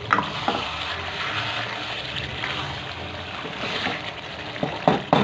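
Mutton and bitter gourd curry sizzling and bubbling in a metal wok, a steady frying hiss. A spatula knocks against the pan at the start, and stirring scrapes and knocks come near the end.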